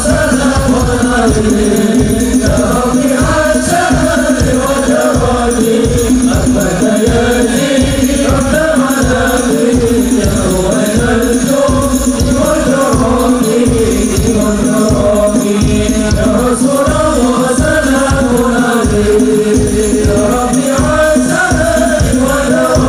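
A hadroh ensemble performing sholawat: men's voices chanting a melody together over a fast, steady beat of frame drums (rebana) with jingling percussion, loud through a PA system.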